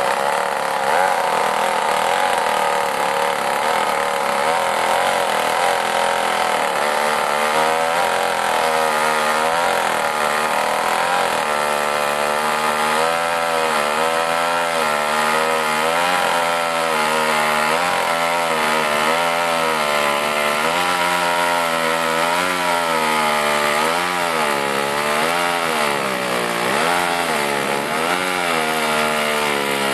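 Vintage two-man chainsaw running under load as it cuts through a log. The engine note is steady at first, then from about a third of the way in it dips and rises again every second or two as the chain bites into the wood.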